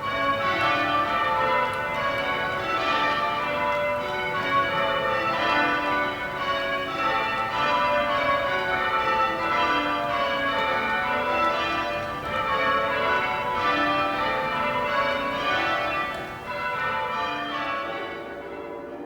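Chapel tower bells being rung, a steady run of overlapping bell strikes that ring on into one another.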